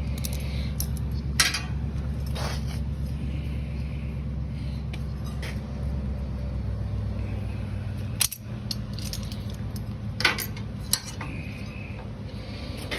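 Scattered metallic clinks and knocks of steel clamps and workpiece being handled, over a steady low hum.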